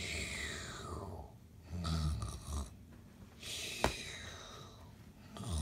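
Comic snoring: low rumbling snores about every three seconds, alternating with airy exhales. The first exhale carries a whistle that falls in pitch. A short sharp click comes a little before the four-second mark.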